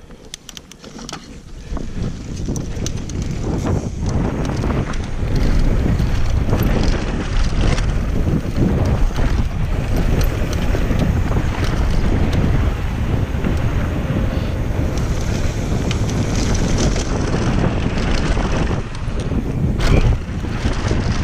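Wind buffeting an action camera's microphone as a downhill mountain bike speeds up on a dirt trail, growing loud a couple of seconds in. The tyres run over loose dirt and the bike rattles over bumps with short clicks and knocks.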